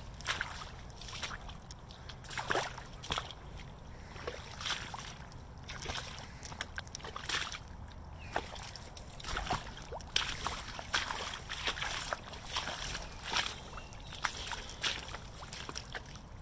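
Footsteps in rubber Hunter wellington boots squelching and splashing through ankle-deep mud and puddles, a wet slosh with each step at a steady walking pace.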